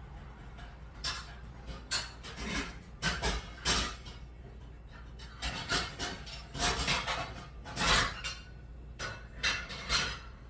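Cookware clanking and knocking, about a dozen irregular bangs and short scrapes, like pots and pans being handled and moved about.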